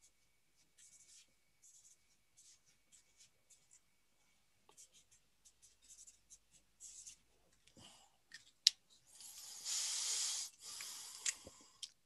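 Felt-tip marker writing on paper: short scratchy strokes, sparse at first and then denser and louder in the second half, with the longest strokes about three-quarters of the way through and a couple of sharp clicks.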